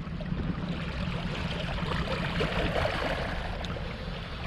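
Small sea waves washing and trickling over shoreline rocks, a steady wash of water that is not strong.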